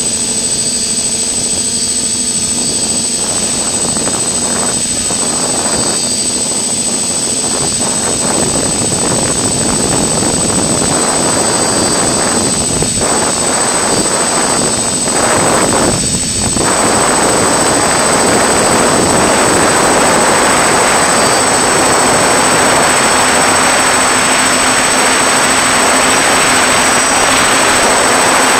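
Multirotor FPV drone's motors and propellers heard through its onboard camera, a steady whine over a dense rush of prop wash and wind. It gets a little louder about two-thirds of the way in, with a couple of brief dips just before.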